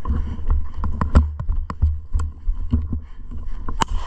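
Body-worn camera jolted by a soldier moving on foot with a rifle: heavy, uneven low thumps of footsteps and handling, with rattling clicks of gear. A single sharp gunshot cracks near the end.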